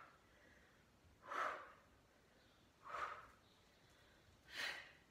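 A woman breathing out forcefully three times in an even rhythm, about a second and a half apart, each exhale on a twist of criss-cross crunches.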